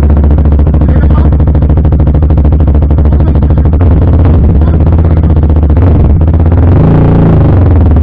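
CFMoto 300SR single-cylinder engine idling loudly through an Akrapovic full-system exhaust, with one short blip of the throttle about seven seconds in.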